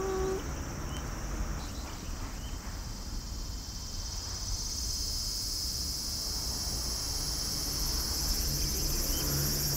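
Insects chirring steadily in a high pitch, swelling about halfway through and holding, over a low outdoor rumble. A cat's drawn-out meow ends just as it begins.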